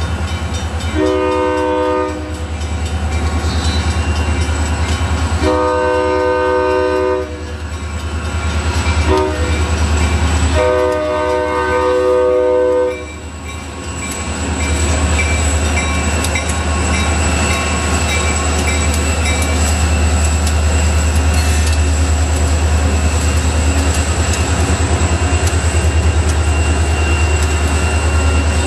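Diesel locomotive horn sounding the grade-crossing signal: two long blasts, a short one and a final long one, as the EMD SD40-led freight train approaches the crossing. After the horn a steady low rumble of the locomotives builds and holds as the lead unit reaches the crossing.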